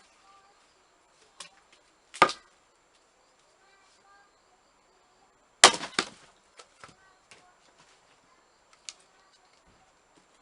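Hand-forged axe splitting firewood: a sharp chop about two seconds in, and a louder one about five and a half seconds in, followed by a few smaller knocks. Faint bird chirps sound in the gaps.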